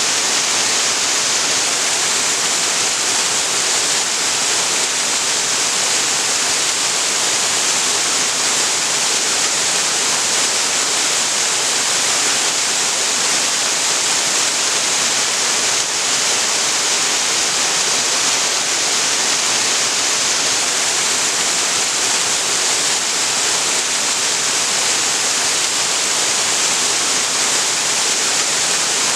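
Waterfall, a steady rushing of water falling and splashing, strongest in a bright hiss with no breaks or changes.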